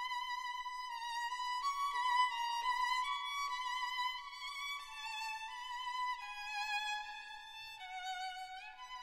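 Background music: a single melody line with vibrato, stepping from note to note and sliding up in pitch near the end.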